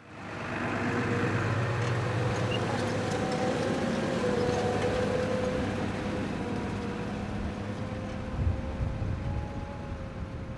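Tractor engine running steadily as it pulls a potato planter along ridged beds, a low rumble with a thin steady whine over it. The sound fades in over about the first second and eases off a little toward the end.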